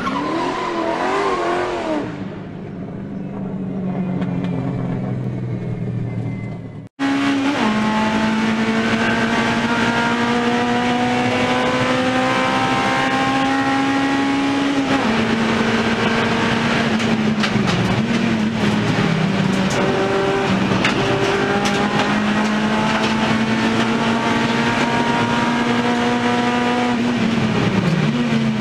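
Honda Civic Type R (EP3) race car's four-cylinder K20 engine heard from inside the cabin, held at high revs with its pitch climbing slowly and dipping briefly a few times at gear changes or lifts, then falling near the end. A different sound with a wavering pitch fills the first several seconds and cuts off just before the engine comes in.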